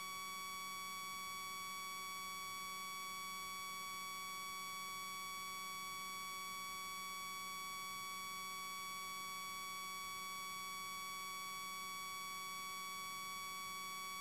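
Steady electronic whine made of several fixed tones over a faint hiss, unchanging in level: electrical interference noise on the recording, which covers any sound of the playground.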